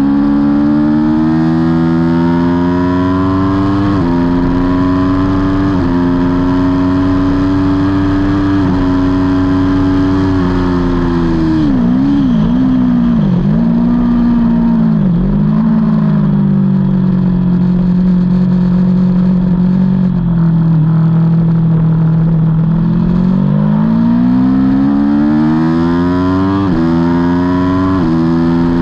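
Aprilia Tuono V4's V4 engine heard on board at racing speed. It accelerates through several upshifts, the pitch climbing and dropping back at each gear change. Midway the revs fall and waver as it brakes and downshifts, then run low and steady before it accelerates hard again with two more quick upshifts near the end.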